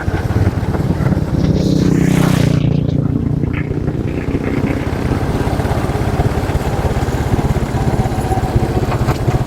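Motorcycle engine running steadily under way, mixed with wind and road noise, briefly louder about two seconds in.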